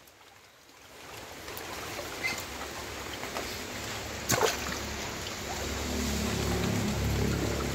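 Muscovy ducks bathing in shallow running water: splashing and trickling, with a sharp splash and wing flap about four seconds in. A steady low hum sets in over the last two seconds.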